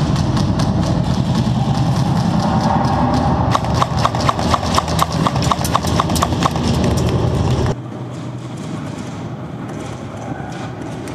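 Quick footsteps of someone running on a concrete floor, a run of regular sharp clacks about five a second in the middle, over a steady low rumble. About eight seconds in the sound drops suddenly to a quieter background.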